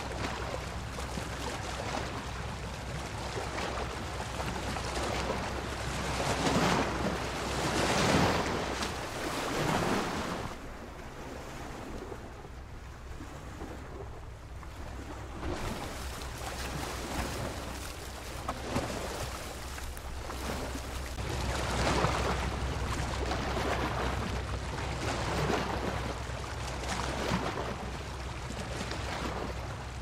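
Ocean surf: waves breaking and washing up the shore in a continuous wash that swells and eases every few seconds. It is loudest about seven to ten seconds in, with a calmer stretch just after.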